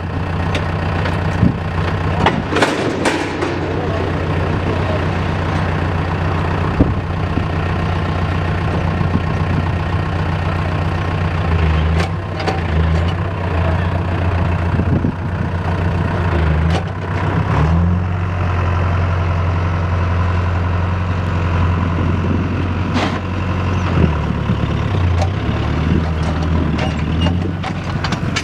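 Farm tractor engine running steadily at low speed, its low hum shifting briefly now and then.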